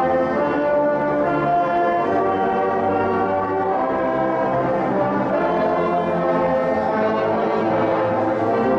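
Orchestral music with brass prominent, playing long held chords that change every second or two.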